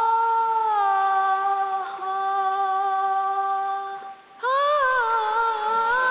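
Soundtrack music: a woman's voice holding long, steady sung notes, then, about four seconds in, a phrase whose pitch wavers and curls in ornaments.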